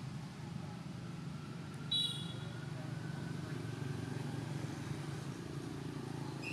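Steady low background rumble with a short, high-pitched chirp about two seconds in.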